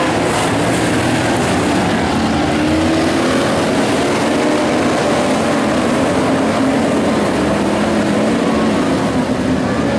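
Several IMCA modified race cars' V8 engines running together around a dirt oval, a steady, loud drone with engine notes rising and falling as the cars power through the turns.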